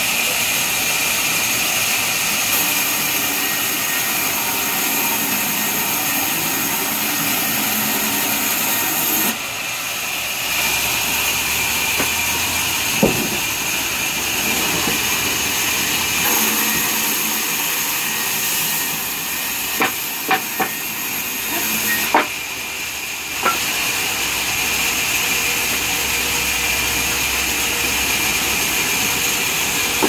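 Sawmill band saw running and cutting mahogany timber, a steady high whine and hiss. Its sound dips and shifts a few times. A handful of sharp wooden knocks come once around the middle and in a quick cluster a little later.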